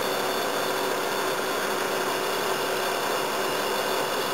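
Toshiba air conditioner running, its fan giving a steady, even rush with a few fixed tones under it.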